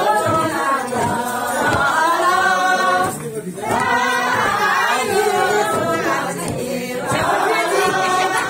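A group of women singing together without instruments, a Tibetan circle-dance song, with a brief break in the singing about three seconds in.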